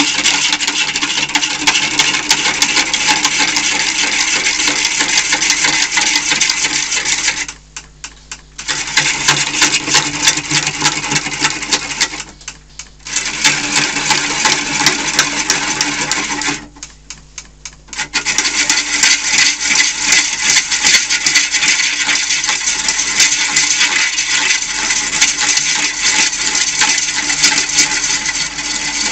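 Bowl gouge roughing a large out-of-round section of green wood spinning on a wood lathe: a loud, continuous rattling cut, as the tool bites in and out of the uneven surface. It breaks off three times for a second or so when the tool comes away, leaving the lathe's hum.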